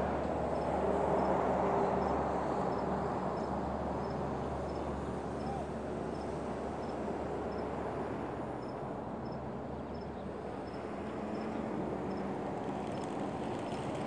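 Steady wind rushing over the phone's microphone, with a low steady hum underneath. Near the end a faint fluttering starts as the flock of racing pigeons is released from the truck's crates.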